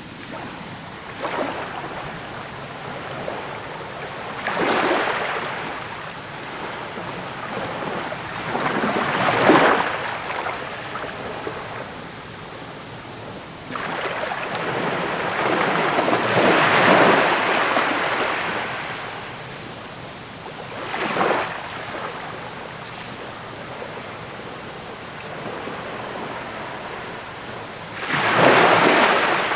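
Sea waves breaking and washing in as foaming surf: a steady hiss of water that swells every few seconds, with one longer surge around the middle and a loud one near the end.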